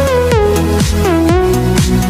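Electronic dance music: a kick drum about twice a second under a synth lead that slides down in pitch.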